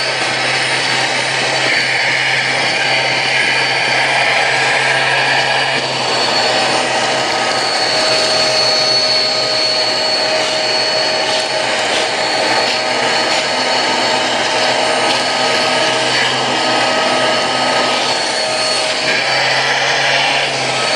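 Eureka AS2113A bagless upright vacuum running with its suction switched to the hose and crevice tool: a steady motor whine over rushing air. The airflow hiss changes for a few seconds about two seconds in and again near the end.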